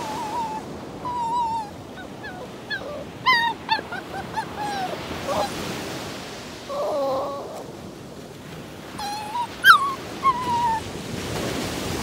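Breaking surf washing steadily, with a string of short, high, wavering whining calls from an animal over it; the loudest is a sharp rising yelp a little before ten seconds in.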